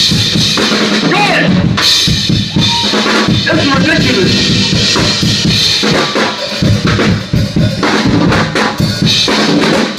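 Drum kit played live: kick drum, snare and cymbals in a steady, busy groove.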